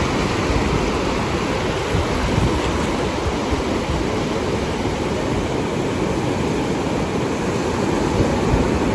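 Ocean surf: small waves breaking and washing up over wet sand, a steady rush of water.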